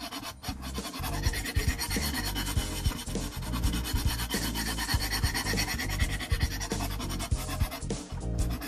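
A sharpening hone on a KME guided-rod sharpener scraping back and forth along a steel knife edge in repeated long strokes.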